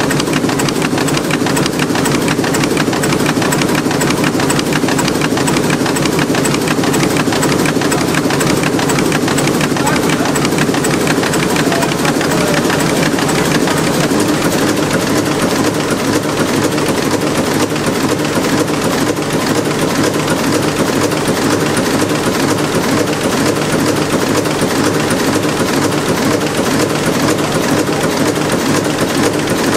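Werkspoor TM356, a 320-litre six-cylinder engine built in 1935, running steadily, with a fast, even clatter from its valve gear.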